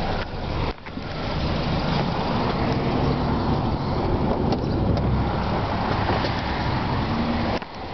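2002 Subaru Forester's flat-four engine idling steadily and quietly, a continuous low hum, with a brief dip in level about a second in.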